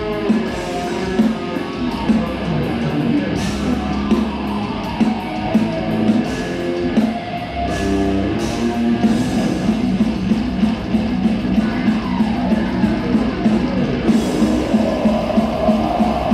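Death metal band playing live: loud distorted electric guitar riffing over a driving drum kit, with sliding guitar notes a few seconds before the end.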